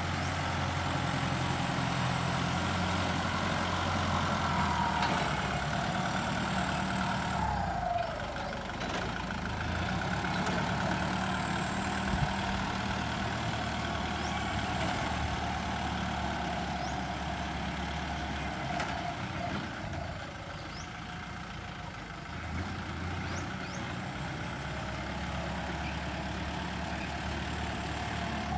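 Kubota tractor's diesel engine running steadily as the tractor works the ground, its note dipping about eight seconds in and again about twenty seconds in.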